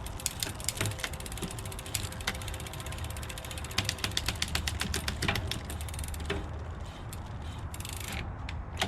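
Bicycle rear hub ratchet clicking rapidly as the rear wheel freewheels, with the clicks thinning out after about six seconds.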